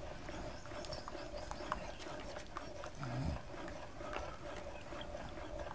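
A short, low animal call that falls in pitch, about three seconds in, over faint scattered clicks and a steady background hum.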